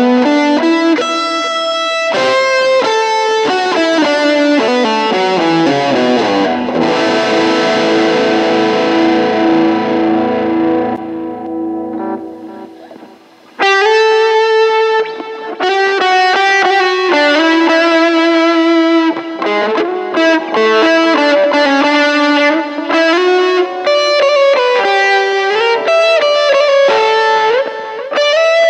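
SQOE SEST250 electric guitar played through an M-VAVE Cube Baby effects unit, picking quick single-note lead lines. About six seconds in, a slide down leaves notes ringing and fading to near silence, then fast runs pick up again about thirteen and a half seconds in.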